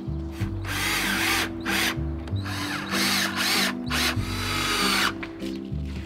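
Cordless drill running in several short bursts, its motor whine rising and falling, over background music with a steady beat.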